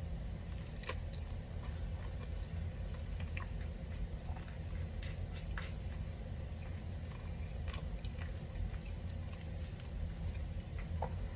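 A person chewing and eating a bowl of curry chicken, with scattered small clicks and ticks of utensils and food, over a steady low hum.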